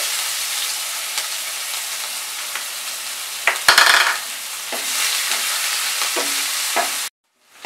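Chopped onions sizzling as they fry in hot mustard oil in a pan, a steady hiss with a brief louder patch about four seconds in. It cuts off suddenly near the end.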